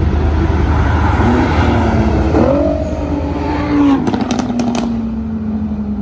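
Nissan GT-R accelerating hard past at full throttle. The engine note climbs, dips and climbs again, and a quick run of sharp exhaust pops and crackles comes about four seconds in. The note then falls away as the car drives off.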